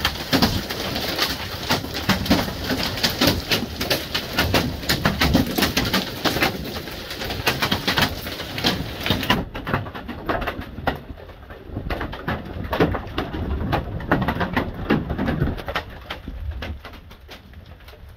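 Hail and heavy rain pelting the ground and nearby surfaces in a thunderstorm: a dense, rapid clatter of hits over a steady rushing hiss. About nine and a half seconds in, the sound turns duller and the hits grow sparser and fainter toward the end.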